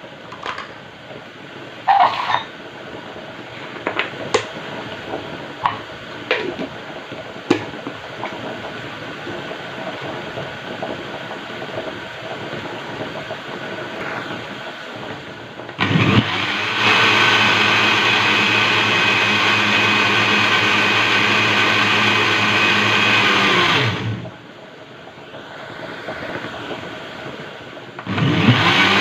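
A few clinks and knocks, then an electric countertop blender starts, runs steadily for about eight seconds and stops. After a short pause it starts again near the end, blending a milk, lemon, cream cheese and yogurt dessert mixture.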